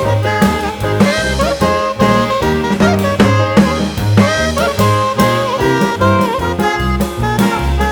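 Background music: an upbeat jazz-style tune with horns and drums over a steady beat.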